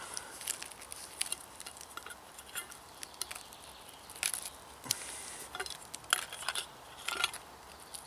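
Knife blade scraping pine resin off a wound in a pine trunk into a small metal tin held just below, in a series of short, irregular scrapes and clicks.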